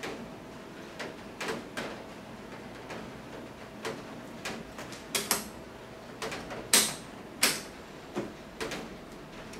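Irregular clicks and knocks of plastic and metal parts being handled on a disassembled electric fan while its motor's rear bearing is oiled, with a few sharper clacks in the second half.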